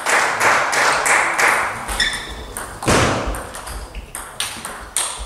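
Table tennis ball hit back and forth by rackets and bouncing on the table, a quick run of sharp pinging clicks with a hall echo, dense in the first half. A heavier thump comes just before three seconds in.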